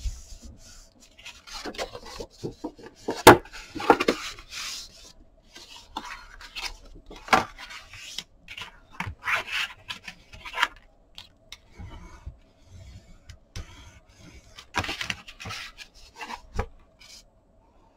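Sheets of kraft cardstock being handled, slid over one another and laid down on a cutting mat: irregular rustling and rubbing with sharp taps, the loudest tap a little over three seconds in. The handling stops about a second before the end.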